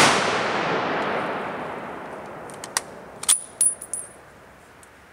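A 1903 Springfield bolt-action rifle shot echoing through the woods and fading over about two seconds. It is followed by the bolt being worked, several sharp metallic clicks with a brief ringing clink, as the spent case is ejected.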